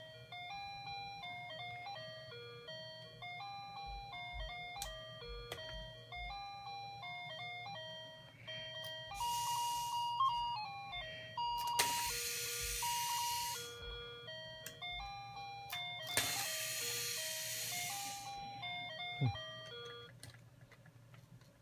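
Electronic baby toy playing a simple beeping tune note by note, broken by three bursts of hiss of a second or two and a few sharp clicks; the tune stops near the end.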